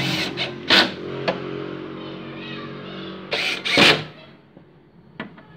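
Cordless electric screwdriver running on a screw in a plastic TV subwoofer enclosure: a steady small-motor whine with brief louder noises about a second in and again about three and a half seconds in. The motor stops about four seconds in, followed by a couple of light clicks.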